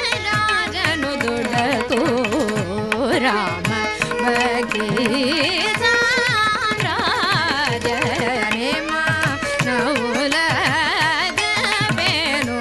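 Carnatic vocal music: a woman sings a continuous, heavily ornamented melodic line in raga Bangala, with violin and mridangam accompaniment over a tanpura drone. The drum strokes keep a steady rhythm under the gliding, wavering voice.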